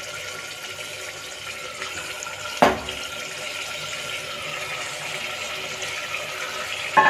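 Mutton pieces sizzling as they are dropped into hot oil-separated masala in an aluminium pressure cooker: a steady frying hiss, with a sharp knock about two and a half seconds in and another near the end as pieces go into the pot.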